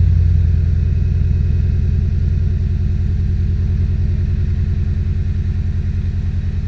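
Audi A3 8P 1.8 TSI turbocharged four-cylinder petrol engine idling just after starting, a steady, fast low pulsing with a slight drop in level. It idles with a misfire, which the owner suspects comes from failed spark plugs.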